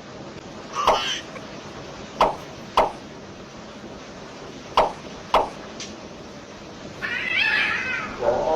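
A cat giving five short, sharp meows spaced a second or two apart, with a longer, higher sound near the end.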